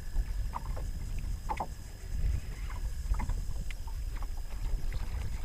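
Open-boat ambience: a steady low rumble of wind on the microphone and water lapping at the hull, with scattered light ticks and knocks.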